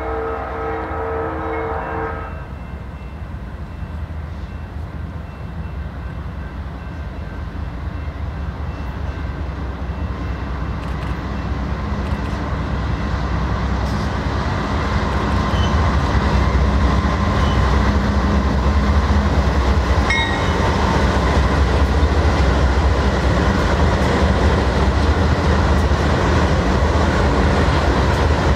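BNSF freight train's horn sounding, cutting off about two seconds in, then the rumble of the diesel locomotives growing louder as they approach and pass, followed by the steady rumble and clatter of double-stack container cars rolling by.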